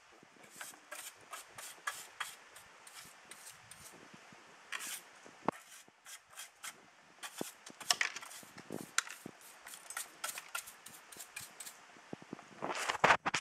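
Small handheld brush with 3D-printed ABS plastic bristles swept in quick, irregular short strokes over hard surfaces: a string of brief scratchy swishes, loudest near the end.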